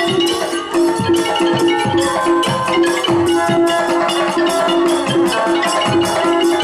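Thai traditional ensemble music accompanying a likay dance, with a bright xylophone-like melody over a steady percussion beat of about three strokes a second.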